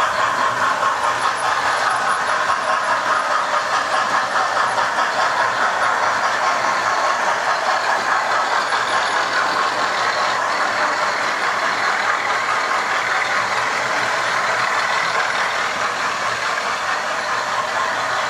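Model railway trains running on the layout's track: the steady whir of the locomotives' electric motors and wheels rolling on the rails.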